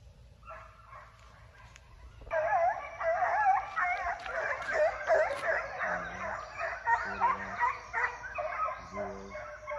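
A pack of young foxhounds baying and yelping together in full cry on a chase. Many voices overlap, starting about two seconds in after a quieter start.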